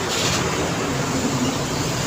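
Busy road traffic with heavy trucks: engines running with a low hum and a steady rush of tyre noise, with a short hiss right at the start.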